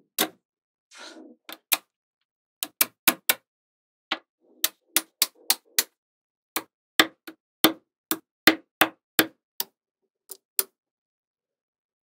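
Magnetic balls clicking as panels built from them are snapped together and set against a magnetic-ball wall: a quick, irregular series of sharp clicks, some in close pairs, with brief soft rattling of balls between them. The clicks stop about a second before the end.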